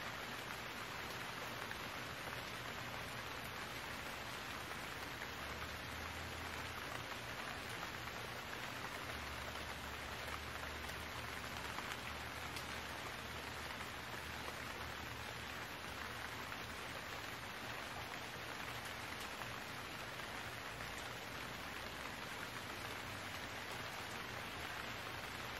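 Steady hiss of falling rain. A faint low hum comes and goes in the middle.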